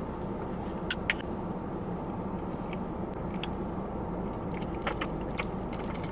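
Small clicks and handling noises, two about a second in and more later, as a pill is taken by hand and a plastic water bottle is lifted to drink, over a steady low hum inside a car's cabin.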